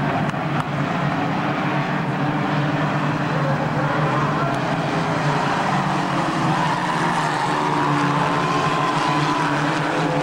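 A pack of stock cars racing around an oval track, their engines blending into a steady, loud drone of many engines under power at once.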